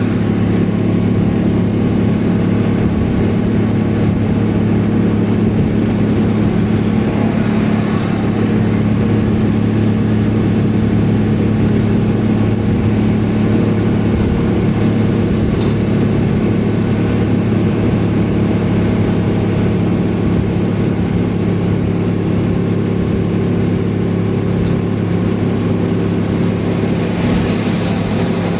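Vehicle engine running steadily at high revs while cruising at highway speed, with a constant drone and road noise and no change in pitch.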